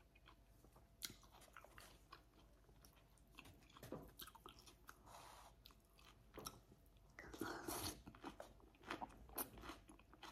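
A person chewing and crunching a mouthful of dressed salad: faint, wet mouth clicks and soft crunches, a little louder for about a second around seven seconds in.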